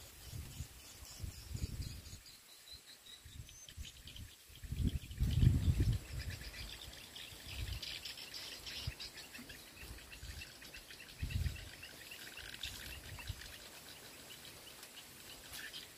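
Outdoor ambience of insects chirping in rapid repeated pulses with occasional bird calls, broken by a few low rumbling bursts on the microphone, the loudest about five seconds in.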